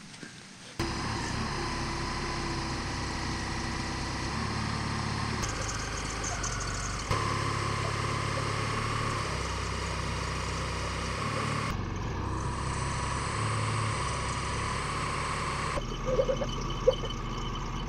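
Telehandler engine running steadily under load as its boom raises a large steel-framed wall form. The sound starts abruptly, steps louder about seven seconds in, and shifts suddenly twice more.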